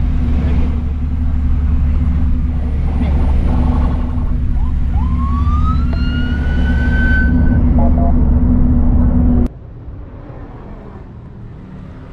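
Steady road and engine noise inside a moving car, with a rising whine about five to seven seconds in. The car noise cuts off suddenly near the end, giving way to quieter outdoor ambience.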